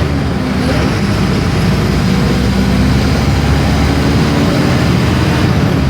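Mercedes-Benz OF-1418 bus's six-cylinder diesel engine running steadily, a continuous low engine drone over road noise.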